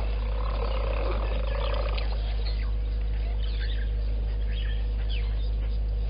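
Waterhole ambience: a steady low hum underlies everything, with a longer, lower animal call in the first two seconds and short, high bird-like chirps scattered through the rest.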